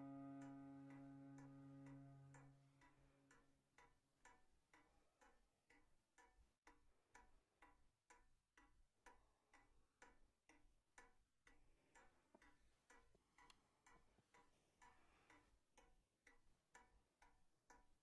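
Faint, steady ticking of a wall clock, about two ticks a second. A held musical chord fades out in the first few seconds.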